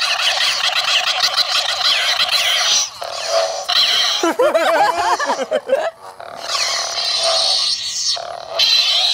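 Lightsaber sound effects from the small built-in speakers of two 3D-printed lightsaber hilts running Adafruit's lightsaber sound code: a steady hum with swing whooshes that slide in pitch as the hilts are waved. A warbling, wavering sound comes about four to six seconds in.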